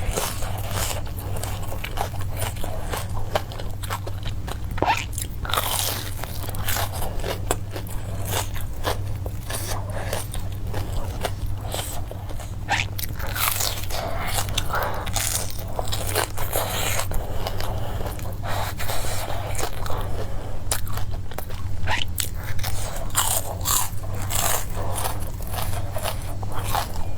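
Close-miked mukbang eating: a person biting and chewing crunchy food fast, with many sharp, irregular crunches throughout, over a steady low hum.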